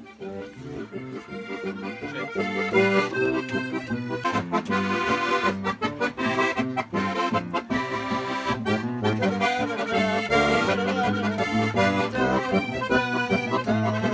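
Accordion playing a traditional folk tune, a melody over a steady repeating bass and chord accompaniment, growing louder about two seconds in.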